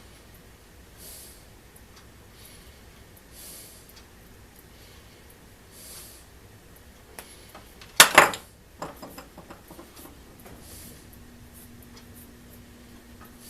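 Hand tools being handled while zip cord is worked on at a bench. A loud sharp clack comes about eight seconds in, followed by a few lighter clicks, with soft breaths every couple of seconds.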